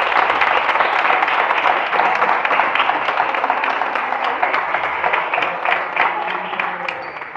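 Audience applauding, many hands clapping together; the applause thins out and fades near the end.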